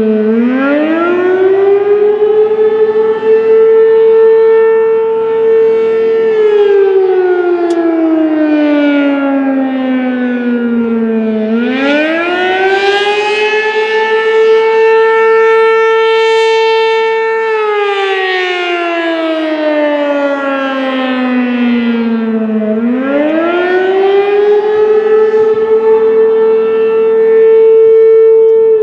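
American Signal RM-127 rotating outdoor warning siren sounding a wail during a scheduled test. The pitch climbs over about two seconds, holds for several seconds, then slides slowly back down, in a cycle of roughly eleven seconds that repeats across the clip.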